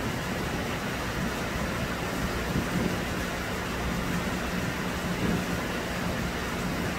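Steady heavy rain hissing on the open station. About two seconds in, a low steady hum joins it as a KRL Commuter Line electric train approaches from a distance.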